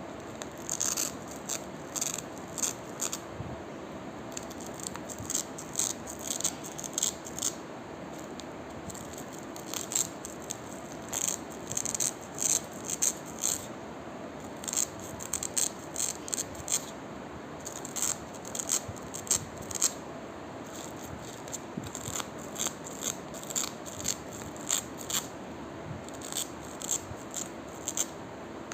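Velcro (hook-and-loop fastener) being pulled apart in short, crunchy rips, coming in irregular clusters with brief pauses between them.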